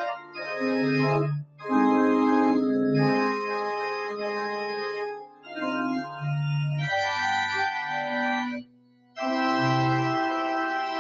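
Church organ playing the closing voluntary: held chords in phrases, with short breaks between them and a longer pause about two thirds of the way through.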